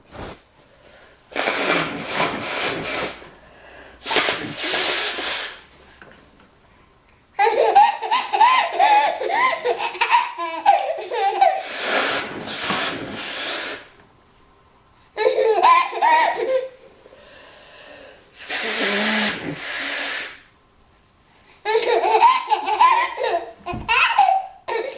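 A woman blows her nose hard four times, and between the blows a baby laughs in three long runs of belly laughter.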